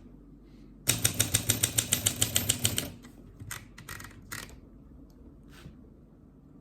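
Olympia SM4 manual typewriter being typed on: a fast run of key strikes, about eight a second, lasting about two seconds, then a few scattered single clicks.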